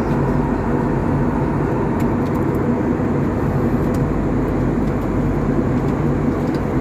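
Steady cabin noise inside an Airbus A321neo with Pratt & Whitney PW1100G engines: a continuous rush of engine and airflow noise with a low hum underneath.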